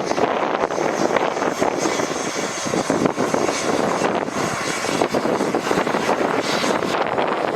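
Strong blizzard wind blowing over the microphone as a steady, loud rushing roar with constant small flutters.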